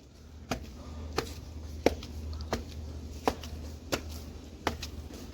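Footsteps walking at an even pace, about seven steps in all, each a sharp tap, over a faint low steady hum.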